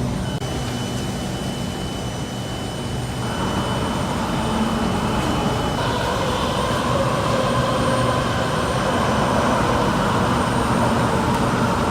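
Steady vehicle-like mechanical rumble with a hissing roar that swells from about three seconds in.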